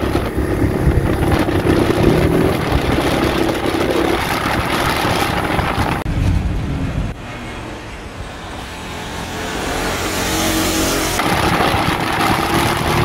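Bajaj Pulsar 220's single-cylinder engine running at road speed, with heavy wind rush over the microphone, and a short break about six seconds in.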